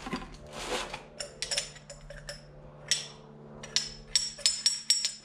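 Billet aluminium throttle kit parts being handled: an uneven string of light metallic clicks and clinks, some with a brief high ring, thickest in the last couple of seconds.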